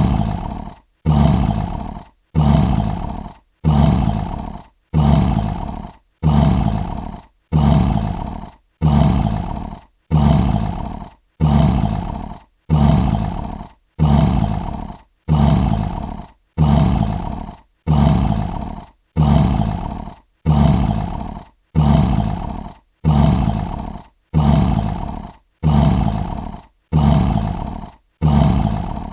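Lion roar sound effect: the same short roar, about a second long and dying away, repeated over and over with a brief silence between, roughly every 1.2 seconds.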